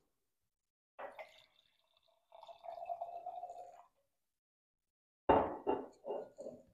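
Red wine being poured from a bottle into a glass: a steady pour lasting about a second and a half. Near the end a short burst of voice is the loudest sound.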